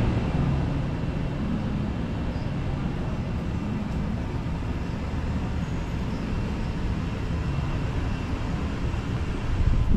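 Steady low rumble of city street noise, with no distinct events.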